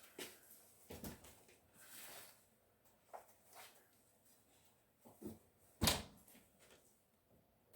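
Oven door and baking dish being handled as the dish is taken out of the oven: scattered clunks and knocks, the loudest about six seconds in.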